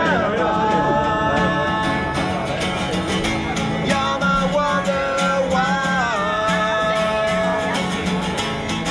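Acoustic guitar strummed in a steady rhythm with a voice singing long held notes, one phrase sliding down to a lower note about halfway through.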